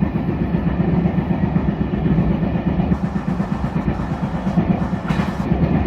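E721 series electric train running at speed, with a rapid, rhythmic pounding from under the floor: the sound of a wheel flat, a flat spot worn on a wheel tread. A short hiss comes about five seconds in.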